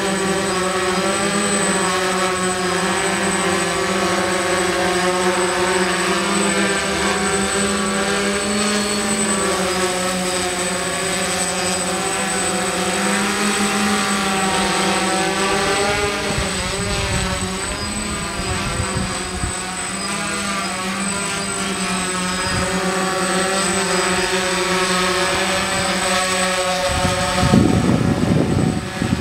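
DJI hexacopter's six electric motors and propellers whining in flight, the pitch of the drone shifting and beating as the motors speed up and slow down to hold and move it. Low rough buffeting on the microphone comes in near the end.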